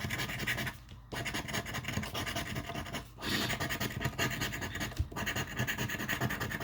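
Scratch-off lottery ticket being scratched, quick rasping strokes scraping the coating off the play area, with brief pauses about a second in and again about three seconds in.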